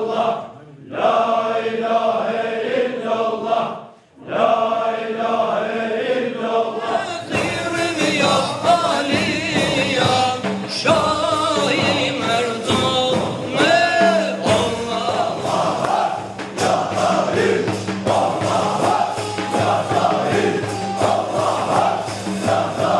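Men's voices chanting a Sufi zikr together in repeated phrases, broken twice by short pauses. From about seven seconds in, a lead singer sings a winding melody into a microphone over the group chant, with a steady beat from hand cymbals and percussion.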